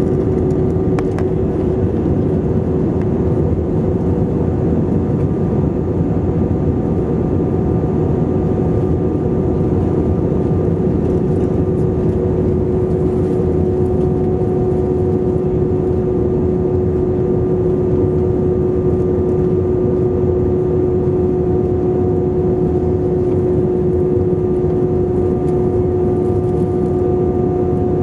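Airbus A320 cabin noise in flight, heard from a window seat over the wing: a steady rush of engine and airflow noise with an unchanging pitched hum running through it.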